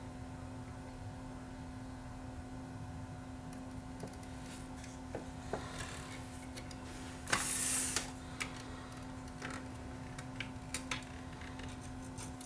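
Quiet soldering work on a circuit board: scattered small clicks and taps from handling wires and the soldering iron, over a steady low hum, with one short hiss about seven seconds in.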